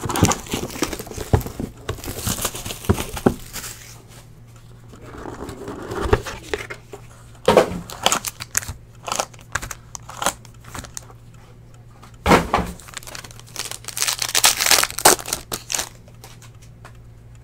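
Plastic shrink wrap crinkling and tearing as a sealed trading-card box is unwrapped, then foil card packs rustling and a pack torn open near the end. Scattered rustles run throughout, with a few sharper knocks of cardboard.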